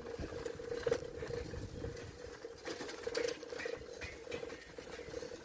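Bicycle in motion: a steady wavering hum with a low rumble and scattered light clicks and rattles.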